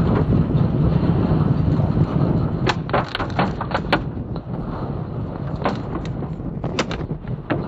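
Violent storm wind buffeting a car with a heavy, rumbling roar, and from about three seconds in a rapid series of sharp knocks and cracks as things strike the car.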